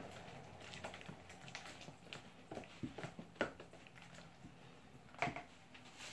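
Faint, irregular clicks and taps of a spoon against a mixing bowl while batter is stirred, the clearest knock about three and a half seconds in.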